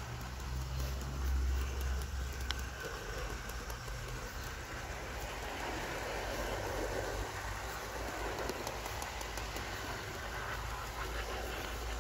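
O gauge model Class 20 diesel locomotive hauling oil tank wagons along garden track, with a steady mechanical rolling noise of wheels on rail. It has no sound decoder, so this is the model's own running noise, not a recorded engine sound. A low rumble is strongest at the start and near the end, and there is one short sharp tick about two and a half seconds in.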